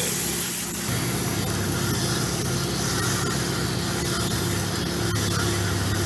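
Water spraying from a spray nozzle through an air-conditioner condenser coil as the coil is washed out, an even hiss over a steady low machine hum that grows stronger about a second in.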